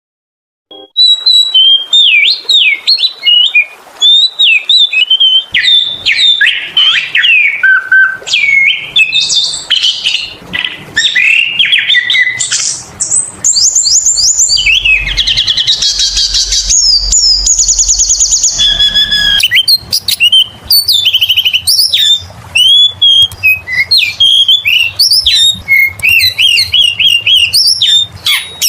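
Oriental magpie-robin (kacer) singing in full, vigorous song: a loud, unbroken run of varied whistles, chirps and trills, starting about a second in. Harsher buzzy, rattling phrases come roughly midway.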